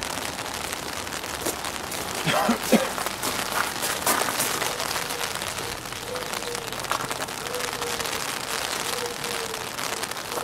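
Steady outdoor hiss with scattered clicks and rustles of a sheet of paper being handled, most of them between about two and four and a half seconds in. A faint wavering tone sits in the background in the second half.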